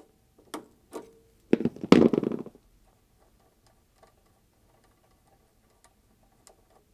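A hand tool undoing the nut on the centre stud of a washing machine heating element: a few sharp metallic clicks, then a louder rattling burst about two seconds in, then only faint occasional ticks.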